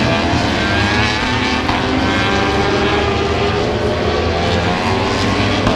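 Several superbike racing motorcycles' engines running at high revs, their pitch climbing steadily as they accelerate.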